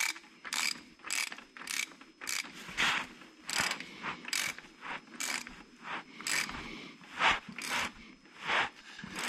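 Hand socket ratchet clicking through about a dozen quick strokes, tightening a freshly fitted engine block heater into a tractor's engine block.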